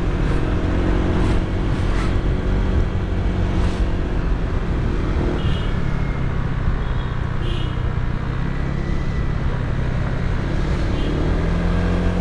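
Motor scooter's engine running steadily while riding, over a low rumble of wind and road noise.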